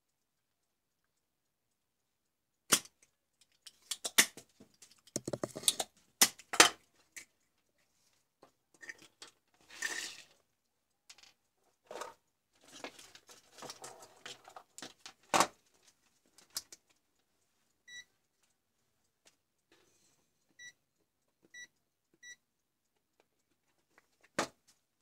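Sharp clicks, knocks and clattering of desoldering tools being handled and set down on a workbench. Later come four short high beeps from a digital multimeter as it is switched on and set, then one last click near the end.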